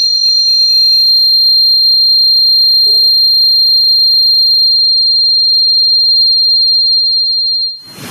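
Loud, steady, high-pitched squeal of audio feedback from the room's microphone and speaker setup, holding one pitch and cutting off suddenly near the end.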